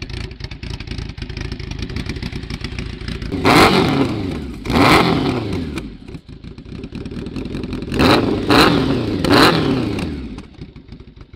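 Motorcycle engine idling and revved five times with quick throttle blips, each rise falling back to idle.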